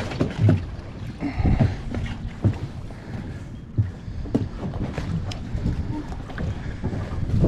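Wind buffeting the microphone in uneven gusts, over choppy water slapping against the hull of a boat moored at a dock.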